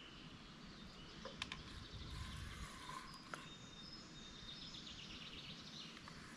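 Quiet outdoor ambience with faint birds chirping and whistling, a short trill of quick ticks near the end, and two sharp clicks about one and a half and three seconds in.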